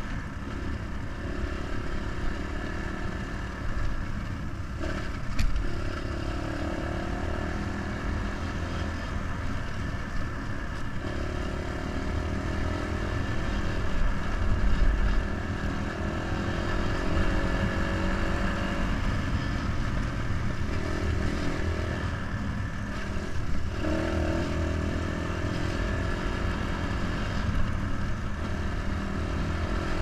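Dirt bike engine running at speed along a rough dirt track, its note changing several times with throttle and gear changes, over a heavy low rumble.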